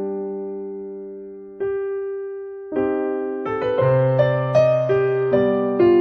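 Background piano music: held chords that fade away, new chords struck at intervals, then a quicker run of notes from about three and a half seconds in.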